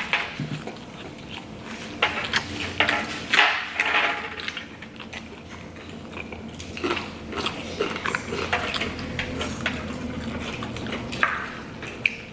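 Close-up eating sounds of a burrito being chewed and bitten, with scattered light clicks and clinks of the food container and utensils.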